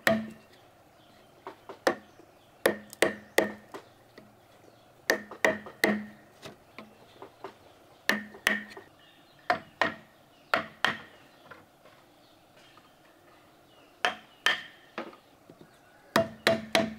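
Repeated hard blows of a tool struck on wood or bamboo, in clusters of two to four strikes every second or two, each with a short hollow ringing. There is a pause of a few seconds past the middle.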